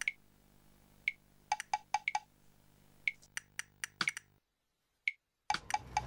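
A string of sharp, glassy clinks at uneven intervals over a faint steady hum. The sound cuts to dead silence for about a second near the end.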